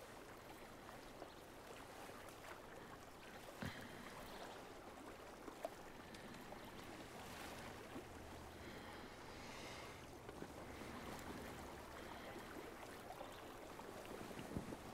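Faint, steady outdoor ambience, a low rushing background like a distant stream, with a few soft clicks and rustles.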